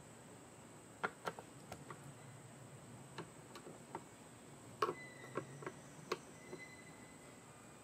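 Faint, irregular light clicks and taps of small engine parts and a hand tool being handled, about a dozen sharp ticks in two clusters, with a faint short squeak in the middle.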